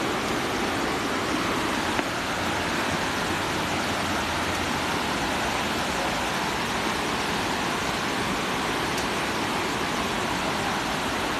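Steady rushing of falling water from a tall waterfall, an even noise without pitch, with one small click about two seconds in.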